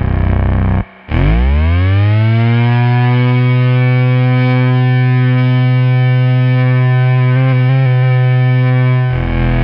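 Arturia MiniBrute analog synthesizer playing a glissando patch. A low note slides quickly up in pitch and settles into a long held buzzy tone rich in overtones, after a short break about a second in, and gives way to another sound near the end.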